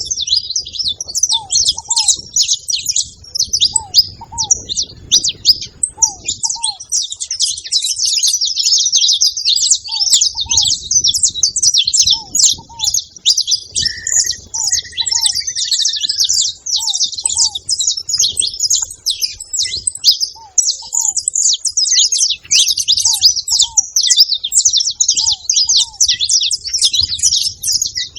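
Saffron finches chattering at a feeding spot: a dense, unbroken stream of high chirps. Under it a lower two-note call repeats every second or two, and a short whistle comes in about halfway.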